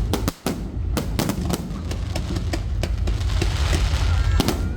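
Aerial fireworks going off in a rapid, dense run of bangs and crackles over a continuous low rumble, with a brief break about a third of a second in.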